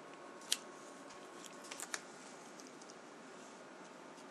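A few small, sharp clicks and taps of hands handling a laptop LCD panel with its tape and ribbon cable: one about half a second in, then a quick cluster near two seconds, over quiet room tone.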